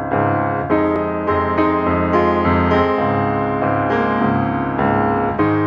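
Background piano music, single notes struck about every half second over sustained lower notes.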